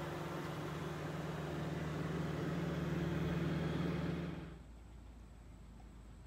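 A vehicle engine running steadily, slightly louder from about two seconds in, then stopping suddenly about four and a half seconds in.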